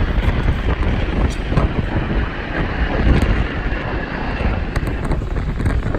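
Strong gusty wind buffeting the microphone over the steady noise of a jet airliner's engines, with a faint high whine running through it.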